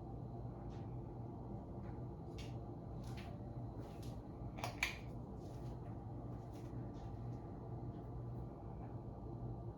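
Litex Ellington ceiling fan running with a steady low motor hum and faint scattered ticks. A sharp double click comes a little before the middle.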